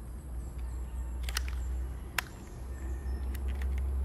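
Light clicks and taps of a homemade paper rifle's parts being fitted back together by hand, the sharpest click about two seconds in and a few smaller ones near the end.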